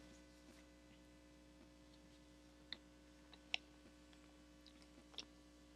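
Near silence: faint room hum with a few soft clicks from sheets of paper being handled and opened.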